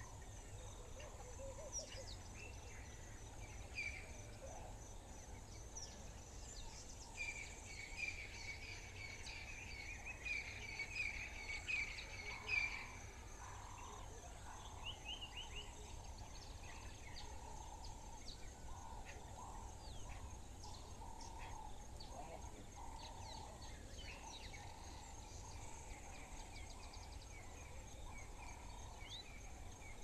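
Several wild birds calling and chirping at once over a steady high-pitched insect drone. One bird's chattering trill, the loudest sound, stands out for several seconds in the middle.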